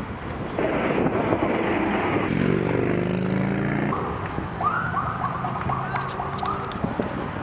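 Road and vehicle noise, with a low steady hum for a second or two in the middle. In the second half comes a siren-like tone that rises and falls rapidly about six times.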